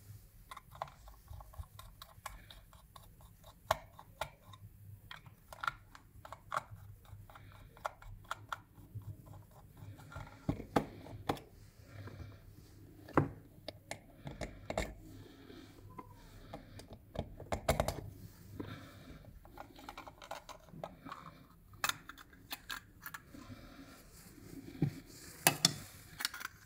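Scattered light clicks, taps and scrapes of a small plastic instrument case being handled, unscrewed and pried open on a silicone work mat, with a few louder knocks through the middle and near the end.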